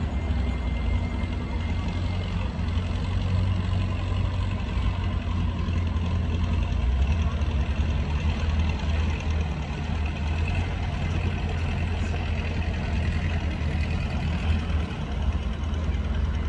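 Thai longtail boat engine running steadily and loud, cruising slowly at little more than idle.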